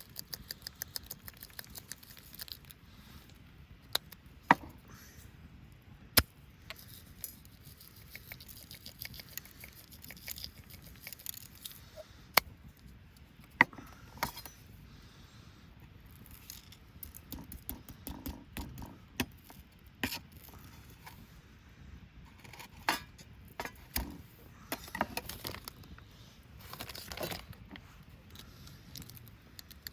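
Light clinks, taps and scrapes of camp cookware and utensils being handled, with a few sharp knocks.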